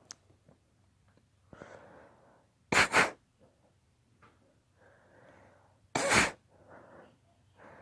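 A girl sneezing during an allergy sneezing fit: two loud sneezes about three seconds apart, each preceded by an audible in-breath.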